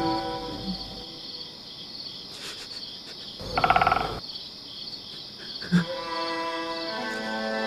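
Crickets chirping steadily at night. Soft held music fades out in the first second and returns near the end. About halfway through, a short loud rasping sound with a fast pulsing texture stands out.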